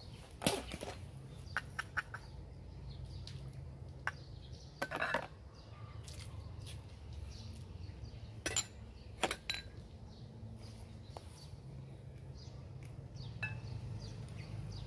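Stainless steel pot and small ceramic bowl clinking and knocking together as ingredients are tipped and spooned into the pot: about eight sharp, separate clinks, over a steady low background rumble.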